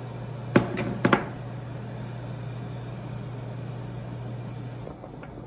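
A metal spoon clinks three or four times against a ceramic cup and pot, about half a second to a second in, over a steady low electric hum from the kitchen appliances that stops near the end.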